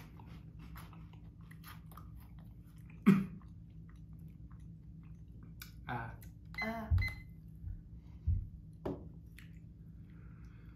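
Crunchy cheese puff balls being chewed, a run of small crunches. There is one sharp knock about three seconds in, and a few louder knocks and rustles between about six and nine seconds.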